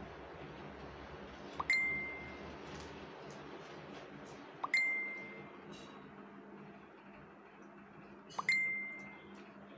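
A bright bell-like ding, three times a few seconds apart, each starting with a small click and ringing briefly before it fades.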